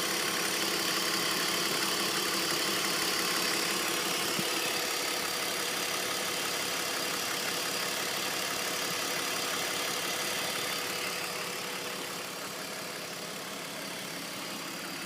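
BMW 330Ci's M54 3.0-litre straight-six engine running steadily at idle. It gets a little quieter about two-thirds of the way through.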